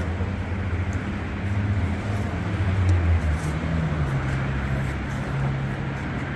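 A machine's motor running with a steady low hum that steps up in pitch about four seconds in.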